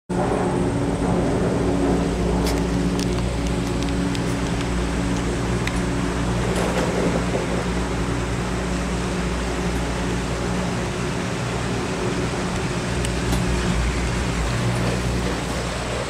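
Chairlift running: a steady mechanical hum and rumble from the moving lift, with a few light clicks.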